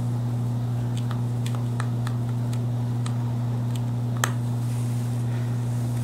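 A steady low hum, with a scattering of faint small clicks and one sharper click about four seconds in.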